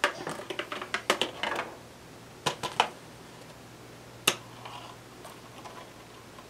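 Irregular sharp clicks and taps: a quick run in the first second and a half, a few more about two and a half seconds in and a single one near four seconds, over a faint steady hum.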